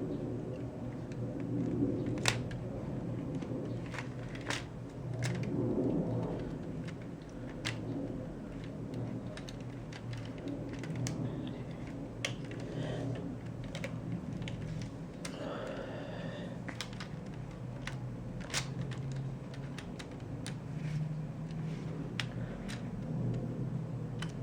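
Scattered light clicks, a dozen or so at uneven intervals, over a steady low hum, with a short squeak about two-thirds of the way in.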